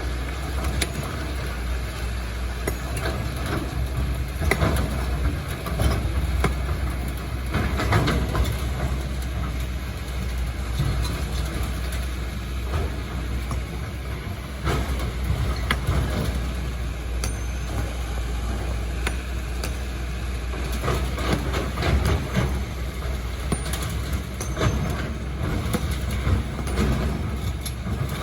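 Excavator's diesel engine running steadily, with irregular knocks and clatters of the bucket working rock and sand.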